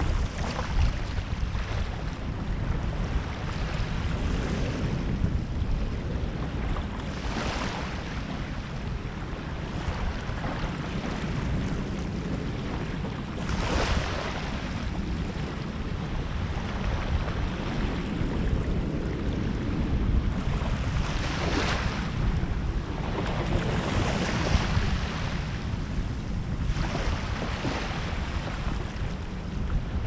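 Small waves washing up onto a sandy shore every few seconds, each a brief swell of rushing water, over a steady rumble of wind on the microphone.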